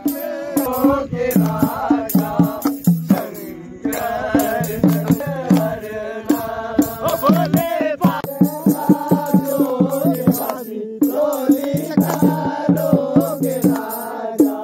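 Voices singing a devotional kirtan chant, with a steady percussive beat keeping time, about two to three strokes a second.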